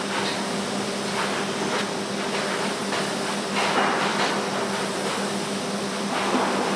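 TIG welding arc running on a root pass in alloy-steel (P11) pipe: a steady hiss with a low hum, and a few rougher surges now and then.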